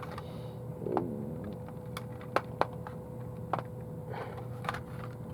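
Scattered light clicks and taps of packaging being handled, over a steady low hum.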